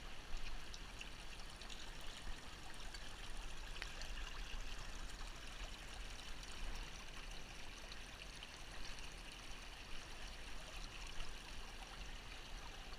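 Small, shallow creek running over gravel and stones: a steady babble of flowing water.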